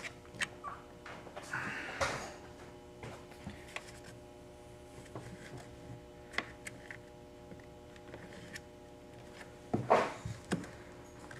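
Plastic windshield cowl panel of a BMW E36 M3 being pressed and handled by hand while a fastener is worked into place, giving scattered light clicks and knocks. A louder cluster of knocks comes about ten seconds in.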